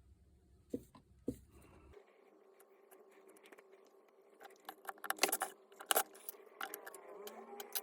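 Metal parts clinking and rattling as they are handled, in a run of sharp clicks that grows busier and louder after the first few seconds. A steady hum runs underneath.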